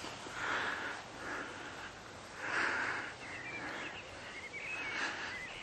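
Irregular swishing footsteps of someone walking through low leafy plants on soft ground, one step about every second.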